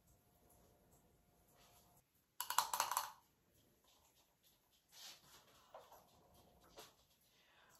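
A brief rattling clatter of small hard objects knocked together, about two and a half seconds in, as skincare containers are handled. After it come fainter handling sounds and a few small clicks as a balm jar is opened.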